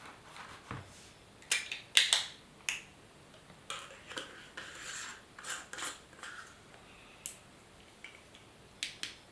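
Handling noise from fitting a green light disc onto a flashlight: a few sharp clicks about a second and a half to three seconds in, rubbing and scraping through the middle, then a few more clicks near the end.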